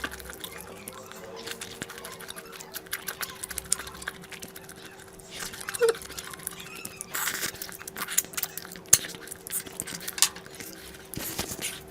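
Close-miked eating: a run of wet mouth clicks and smacks from chewing, over a steady faint hum, with one short squeak about six seconds in.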